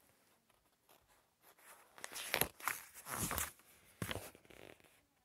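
A picture book's page being turned by hand: a few quick paper rustles and swishes starting about a second and a half in.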